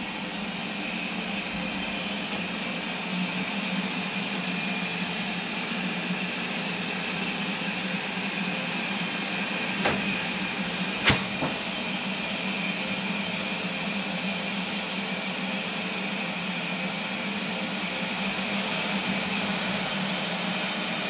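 BR Standard Class 4MT 2-6-0 steam locomotive moving slowly, with a steady hiss of steam and a low steady hum. Two sharp knocks about ten and eleven seconds in.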